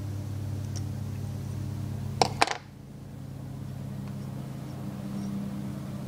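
Metal carburetor parts handled on a workbench as the float bowl is fitted back onto a Kohler K-series carburetor, with two sharp clicks a quarter second apart about two seconds in. A steady low hum runs underneath.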